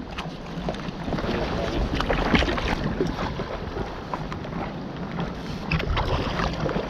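Water splashing and lapping around a stand-up paddleboard being paddled, in irregular strokes, with wind rumbling on the microphone.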